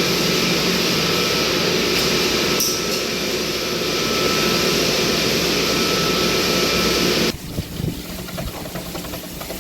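Steady machinery running: a continuous noisy hum with a few held tones, which cuts off abruptly about seven seconds in to a quieter background.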